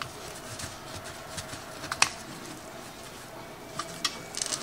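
Forks clicking against a metal sheet pan while biscuits are broken apart: one sharp clink about two seconds in and a few quicker taps near the end, over a faint steady hum.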